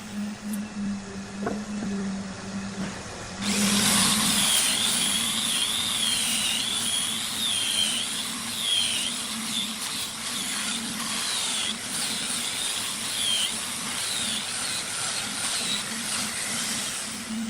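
A power tool working wood: a low steady hum, then about three and a half seconds in it starts cutting or grinding, with a loud wavering high whine that runs on.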